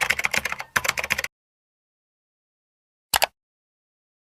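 Rapid computer-keyboard typing: a quick run of key clicks that stops about a second in. After a stretch of dead silence come two more quick keystrokes a little after three seconds.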